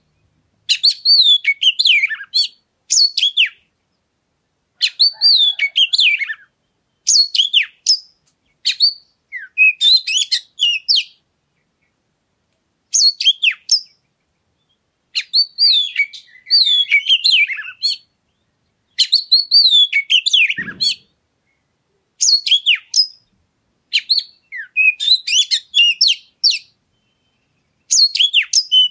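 Oriental magpie-robin (kacer) singing in repeated phrases of varied whistles and quick trills, each a second or two long, with short silent pauses between. This is a lure song of the kind played to coax a caged kacer into singing.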